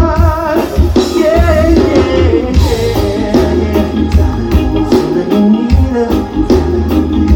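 Live band playing through a festival PA, heard from out in the crowd: singing over guitar, with bass and drums coming in at the start and keeping a steady beat.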